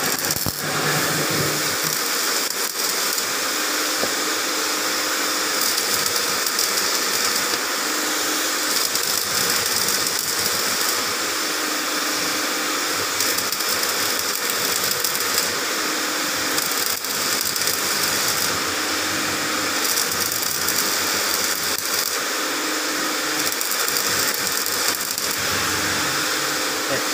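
Electric arc welding on the steel steering spindle of a Case 580M backhoe, repairing the tie rod seat: a steady crackling hiss with a few sharp pops.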